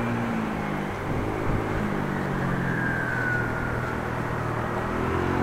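A motor vehicle's engine running, its pitch dropping near the start and rising again about two seconds in, over a steady rushing noise.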